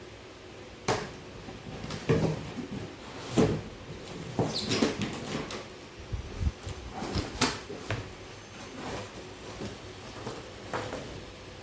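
Household things being handled and put away in a kitchen: scattered knocks and clicks a second or two apart, like cupboard doors and objects being set down. A short high scrape comes about four and a half seconds in.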